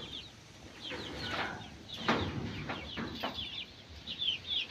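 A flock of young layer hens clucking and chirping with many short, high calls, and a few rustling scuffs in the middle.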